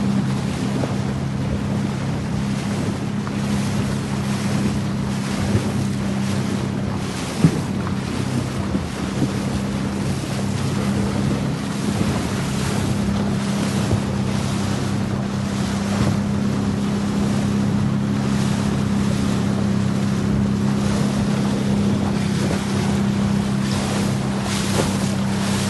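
A boat's engine runs at a steady low hum under the rush of water along the hull, with wind buffeting the microphone in gusts. A single brief knock sounds about seven seconds in.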